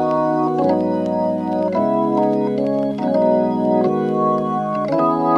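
Background music of sustained chords on an organ-like keyboard, changing about once a second.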